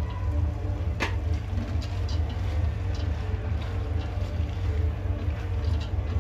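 A wooden spoon stirring soaked whole masoor lentils in a metal pot, with a sharp knock about a second in and light scattered ticks, over a steady low hum.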